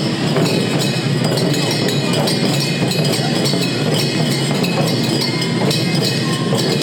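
Kokura Gion daiko drumming: a taiko drum struck in a steady rhythm over the continuous metallic clanging of jangara hand cymbals.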